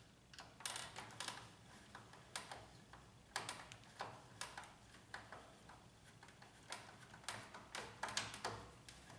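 Faint, irregular small clicks and taps, about one or two a second, of a screwdriver working a screw out of a laser printer's plastic housing and of the parts being handled.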